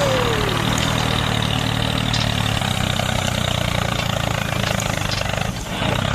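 A small engine idling steadily with a low, even hum.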